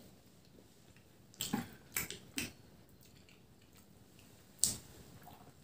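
Mouth sounds of people eating steamed momos: a few short, wet lip smacks and chewing clicks with quiet between, the sharpest near the end.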